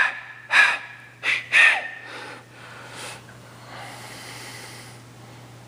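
A person's short, breathy vocal sounds: four quick gasps or snorts in about two seconds, then fainter breaths, over a steady low electrical hum.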